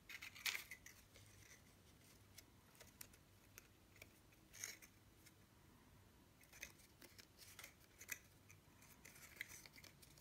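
Quiet, occasional soft rustles and scrapes of cardstock pieces being handled and pressed together as a gold-foil paper star is glued onto a card insert.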